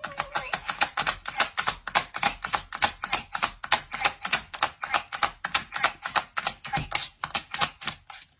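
A rapid run of sharp clicks or taps, about five a second, that stops abruptly near the end.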